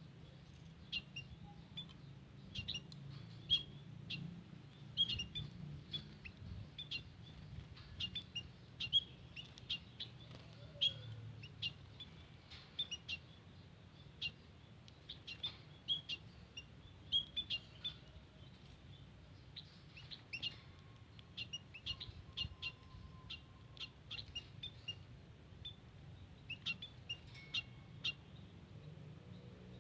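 White-headed munia (emprit haji) calling: short, high chirps given again and again at irregular intervals, over a faint steady low hum.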